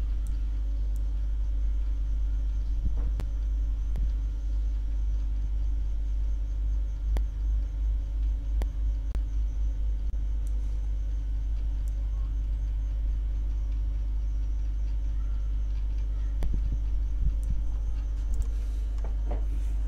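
Steady low rumble of background noise that wavers a little midway, with scattered faint clicks of a computer mouse.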